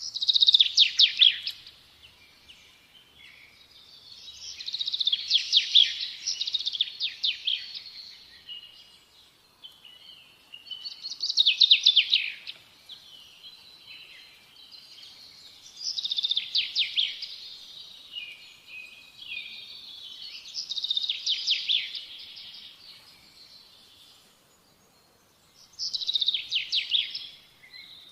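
A songbird singing: six loud, rapid trilling phrases of about two seconds each, a few seconds apart, with softer twittering between them.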